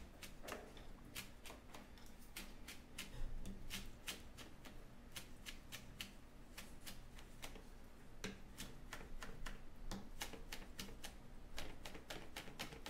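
Kitchen knife mincing tamarind leaves on a plastic cutting board: a quick, uneven run of light knife taps, about four a second.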